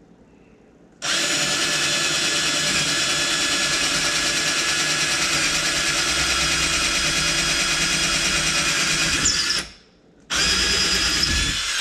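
Black and Decker 20V cordless drill boring a handle hole through a kitchen cabinet door, running steadily for about eight seconds, then stopping briefly. It starts again for a shorter burst near the end.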